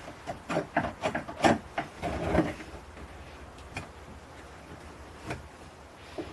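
A hand scraping and picking at the rotted-away end of a wooden boat's steamed rib in the bilge: scratchy rubbing and small knocks of loose wood, busiest in the first couple of seconds, then a few isolated ticks.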